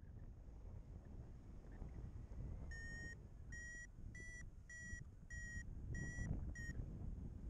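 A paragliding variometer beeping seven times in quick, even succession, the climb tone that signals the glider is rising. The pitch rises slightly after the first beep, over a steady low rush of wind on the microphone.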